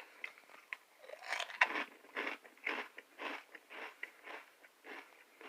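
Crunchy puffed corn snacks (Doritos 3D Crunch) being chewed with the mouth closed: a steady run of crisp crunches, about two a second.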